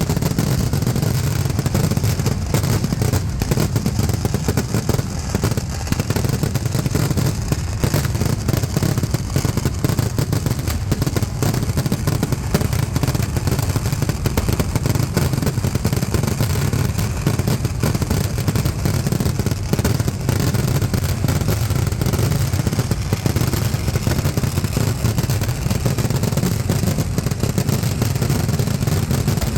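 Temple-festival fireworks barrage: firecrackers going off in rapid, unbroken succession, the explosions merging into a continuous deep rumble with crackle on top.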